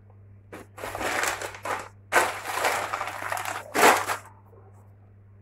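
Plastic bag crinkling and rustling in a run of handling noises, strongest around two seconds in and again near four seconds.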